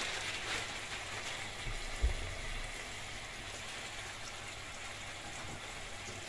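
Onion and garlic sizzling and simmering in butter with a little water in a saucepan: a steady hiss, with one low bump about two seconds in.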